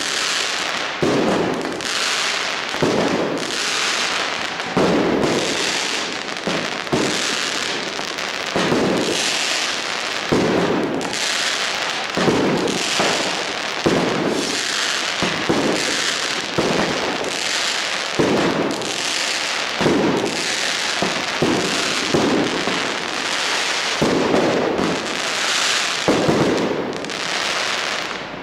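New Year's fireworks and firecrackers going off without pause: a dense crackle with loud bangs about once a second, each ringing on after it.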